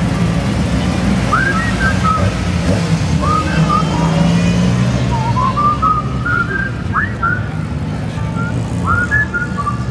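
Race car engines running in a steady low drone, with many short, rising high whistles sounding over it.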